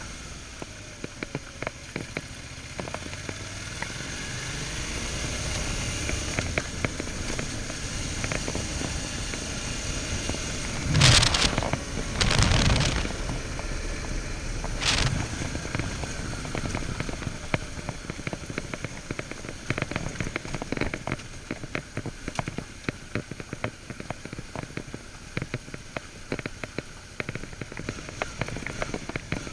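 Suzuki V-Strom 650 V-twin motorcycle ridden on a gravel trail, its engine muffled under a steady crackle of gravel and rattle. Two loud rushes of noise come a little past the middle, and a shorter one follows about two seconds later.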